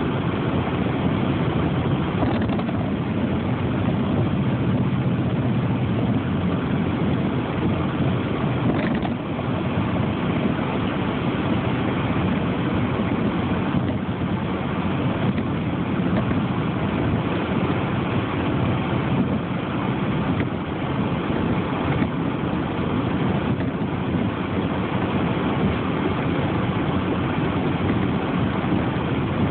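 Steady vehicle engine and road noise, an even low rumble that holds at one level throughout.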